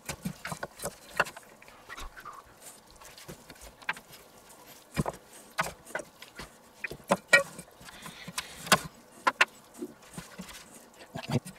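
Irregular clicks, knocks and squelches of gloved hands stuffing a whole raw duck with Brussels sprouts and bacon, the bird handled over a stainless steel roasting pan. The sharpest knocks come about 5 s and 9 s in.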